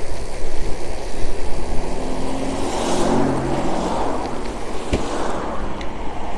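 Wind rushing over the microphone on an electric bike coasting fast down a steep hill, with a car's engine passing close by between about two and three and a half seconds in.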